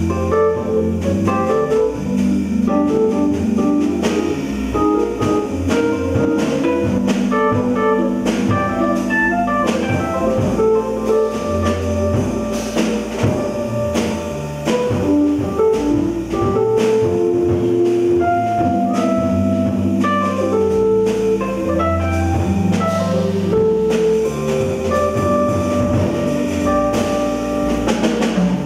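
Live small-group jazz: a stage keyboard, drum kit with cymbals and an electric bass playing together at a steady, full level.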